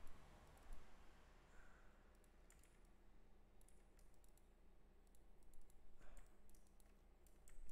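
Faint, scattered clicks of a computer mouse and keyboard keys over a low steady hum.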